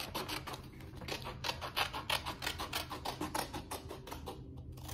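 A sheet of paper rustling as it is handled, in a quick irregular run of short, crisp crackles.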